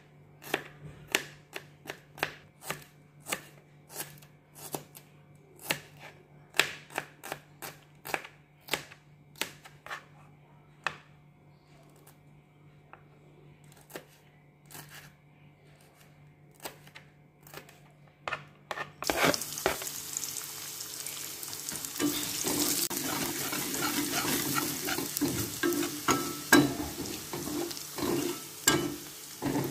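A knife chopping garlic and shallots on a plastic cutting board, sharp taps about two a second that grow sparser after about ten seconds. About two-thirds of the way through it changes suddenly to frying: chopped aromatics sizzling in hot oil in a wok, stirred and scraped with a metal spatula.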